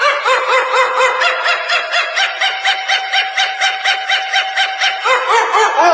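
A dog yapping rapidly and without pause, about four or five short yips a second, with a steady held tone behind it through the middle of the stretch.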